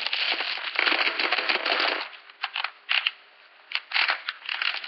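Plastic shrink wrap crinkling and tearing for about two seconds as it is stripped off a plastic toy case. Then come separate clicks and clatters of hard plastic pieces as the case is opened and handled.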